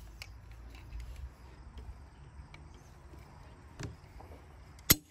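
Sharp metallic click near the end of an AR-15 lower's fire-control group as the hammer falls when the trigger breaks under a trigger pull gauge, at a little over 6.5 pounds. A fainter click comes about a second before, over a low steady rumble.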